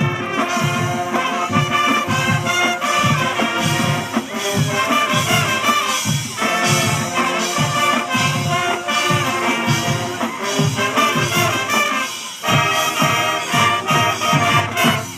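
High school marching band playing, brass over a steady drum beat. The music breaks off briefly about twelve seconds in, comes back for a final loud passage, and then stops.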